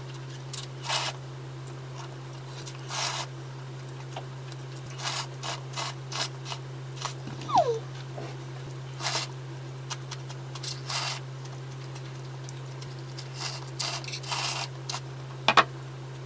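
Slurping and chewing of cold kimchi-broth noodles: a string of short, separate slurps every second or two over a steady low hum, with one short falling squeak about halfway through and a sharp click near the end.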